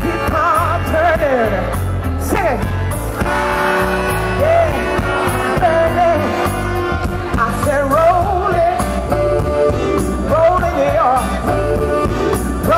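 A woman singing live into a microphone with wide vibrato and long held notes, over a band's backing, amplified through the stage sound system.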